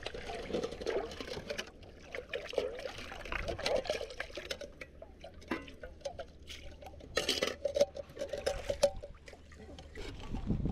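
Water being poured and sloshed, trickling and gurgling, with scattered small clicks and knocks and a louder splash a little past the middle.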